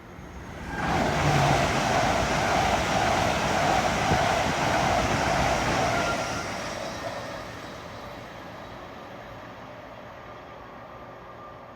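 High-speed passenger train passing at speed on the East Coast Main Line. A loud rushing of wheels on rail comes up about a second in, holds for about five seconds, then fades away.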